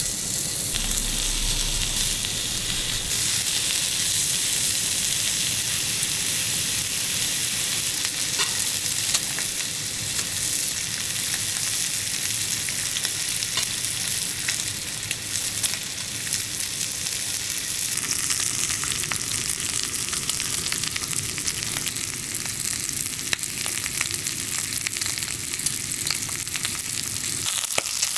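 Pork meat frying in a hot pan: a steady sizzle with many fine crackles.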